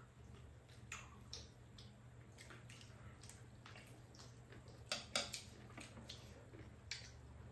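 Quiet eating sounds: metal spoons and chopsticks tapping and scraping ceramic bowls of rice soup, with soft wet mouth sounds. A few light clicks come scattered through, the sharpest pair about five seconds in.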